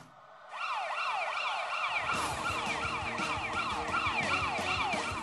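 A siren-like sound effect of quickly repeating falling wails, about three a second, played as an urgency cue. A low rhythmic music beat joins it about two seconds in.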